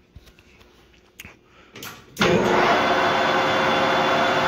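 A few light clicks, then about two seconds in a Victor 1660 geared-head manual lathe starts up. Its spindle and chuck then run steadily: a loud, dense whir with several steady tones through it.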